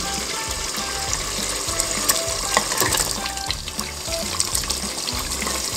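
Chicken pieces sizzling and bubbling in korma sauce in a pan, with a few light clicks of a spatula.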